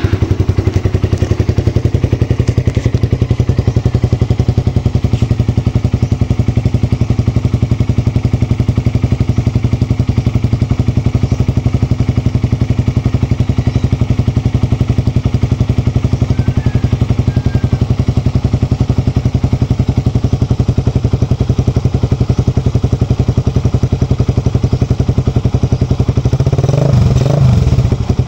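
Suzuki Raider R150's single-cylinder 150cc engine idling through an Akrapovic 51mm standard-type aftermarket exhaust with its silencer insert fitted, a steady rapid pulse. Near the end the throttle is blipped once, the note rising and falling briefly before settling back to idle.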